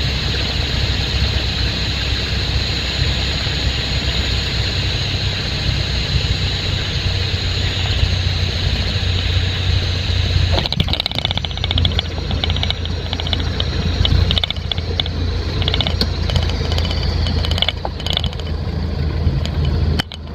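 Piper Archer II's four-cylinder Lycoming engine and propeller running steadily, with rushing airflow. About halfway through, a series of knocks and rattles begins, the sound of the wheels touching down and rolling on the runway.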